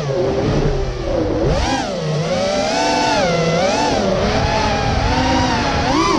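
FPV freestyle quadcopter's brushless motors whining, the pitch swooping up and down over and over as the throttle changes.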